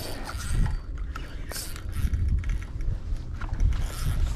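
Fishing reel being cranked, its gears whirring and clicking in an uneven run while a hooked fish is reeled in, over a low rumble.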